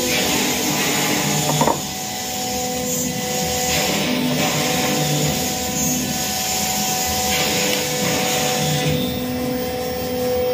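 Workshop machinery running in a CNC router shop for cutting MDF: a steady hum with a constant whine over a hiss of noise. There is one short knock about one and a half seconds in.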